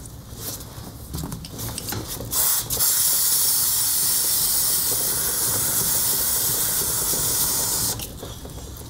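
Aerosol can of Motul chain lube spraying onto a motorcycle drive chain: a long, steady hiss that starts about two seconds in and cuts off about a second before the end.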